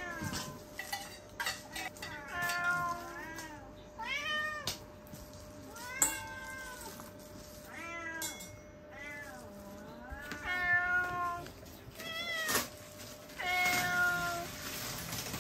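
Several house cats meowing over and over, about ten rising-and-falling meows, begging for the opened tuna, which they take for their own food.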